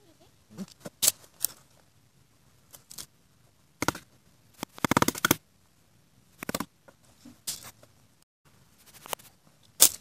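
Dry branches and twigs snapping and crackling as they are broken and handled by hand: a series of separate sharp cracks, with a longer run of rapid crackling about five seconds in.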